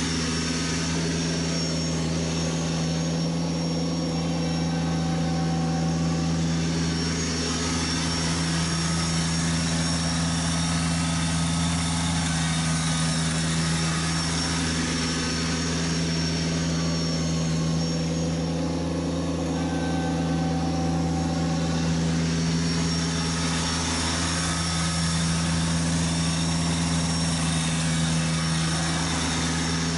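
Kubota BX1870 sub-compact tractor's three-cylinder diesel engine running at a steady speed while the tractor pushes snow with its front plow; the engine note holds nearly constant, with only slow, gentle swells as the tractor moves nearer and farther.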